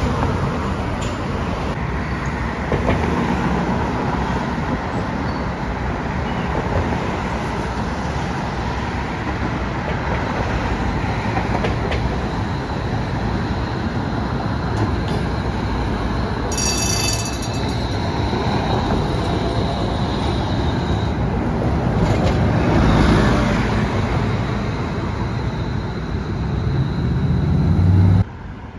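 An electric streetcar running along street-running track amid passing car traffic, a steady mix of rail and road noise. A brief high-pitched tone sounds about halfway through, and a thin steady high whine runs through the later part.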